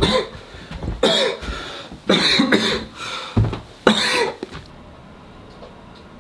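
A man coughing into his fist: a fit of about five coughs, roughly a second apart, that stops about four and a half seconds in.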